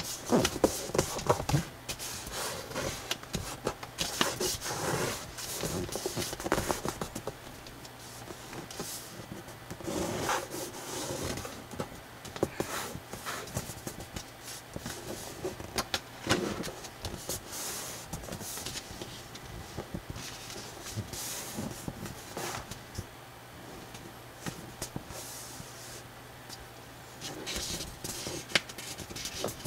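Sheet of thick coloured drawing paper being folded and creased by hand: irregular rustling and crackling as the paper is lifted and bent, and scraping as fingers press and run along the folds against the table.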